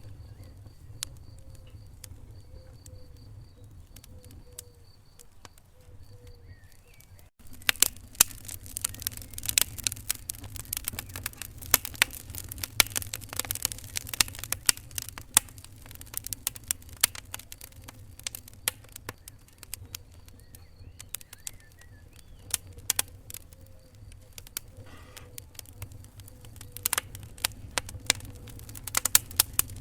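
Wood fire in a fireplace crackling and popping over a low, steady rumble. The pops are sparse at first, then come much thicker and louder after a sudden change about seven seconds in.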